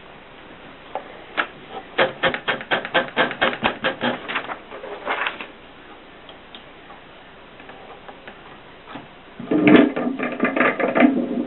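Adler Contessa typewriter being typed: a quick run of key strikes, several a second, then a pause and a louder, heavier burst of clatter near the end.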